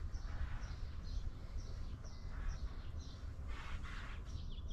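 A songbird calling over and over, short falling chirps about three a second, over a steady low outdoor rumble.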